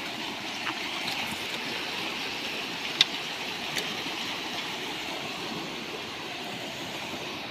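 Steady rush of a flowing brook, with a few light clicks and one sharp snap about three seconds in.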